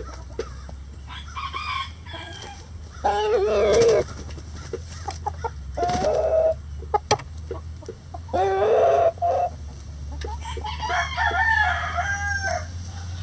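Backyard chickens clucking and calling, with several loud calls about a second long and a rooster crowing.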